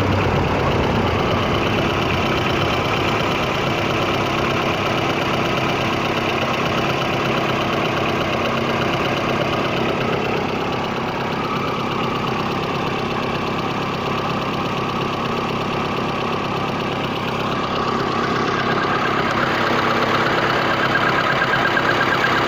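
A VAZ-21099's four-cylinder engine running, with an odd knock that comes only from time to time; its cause is unknown to the owner. The engine note and loudness rise slightly near the end.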